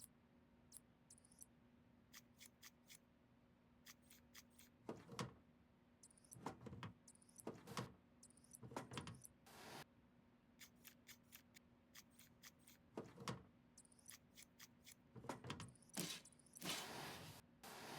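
Scattered light clicks, taps and short scrapes of PC components being handled, a few louder rustles near the end, over a faint steady hum.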